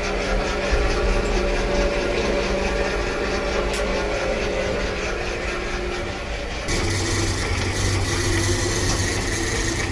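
A machine engine running steadily, a hum with several held tones; about two-thirds of the way in, the sound changes abruptly to a heavier low hum with more hiss on top.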